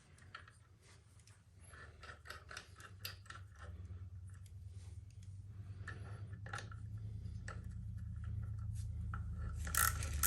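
Small metal clicks and scrapes of hand tools as the heel shifter's bolt and nylon lock nut are fitted on the motorcycle, with a socket ratchet starting to click rapidly near the end as the nut is run down. A low hum grows steadily louder underneath.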